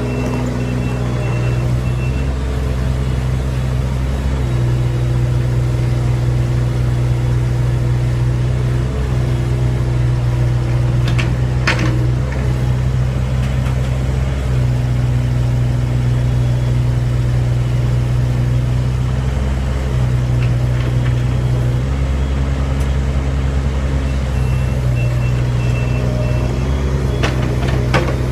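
Kubota KX41-3V mini excavator's three-cylinder diesel engine running steadily close by, its note stepping up and down several times as the machine works. A couple of brief knocks come about midway and near the end.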